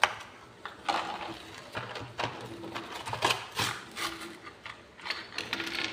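Handling and opening a Lego minifigure pack: packaging rustling and crinkling, with small plastic pieces clicking, in an irregular run of short sharp sounds.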